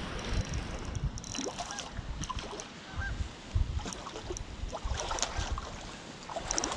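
Wind rumbling on the microphone, with scattered light clicks and a few short honking bird calls.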